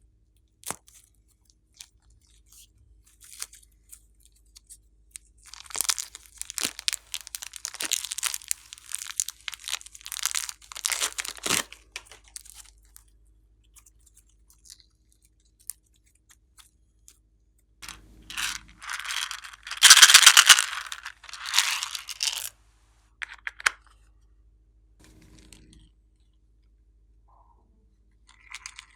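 Slime being squished and stretched by hand, giving crackling, tearing sounds in two long bursts, the second louder, with a few scattered clicks between.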